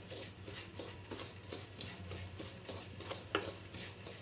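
Spatula stirring and scraping dry semolina being roasted in a pan: a quick, irregular run of soft scrapes and rustles, several a second, over a faint steady low hum.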